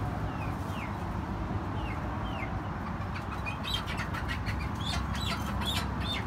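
Chickens clucking and squawking: a few short, falling calls at first, then a quick run of sharp calls over the last three seconds, above a steady low background noise.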